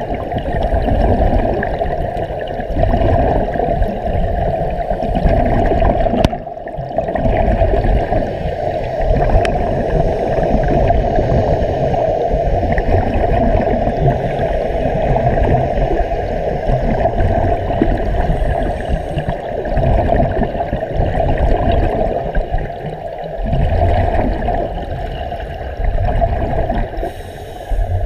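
Continuous underwater bubbling and gurgling of air venting from surface-supplied Sea Trek diving helmets, heard underwater. It dips briefly a few times.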